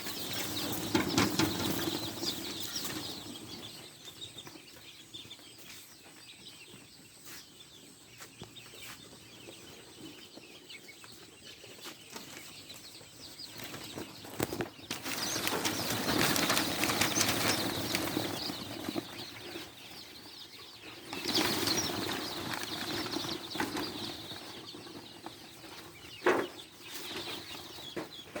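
Chickens flapping their wings in several noisy bursts: one at the start, a longer stretch past the middle, and another soon after, with quieter shuffling in between.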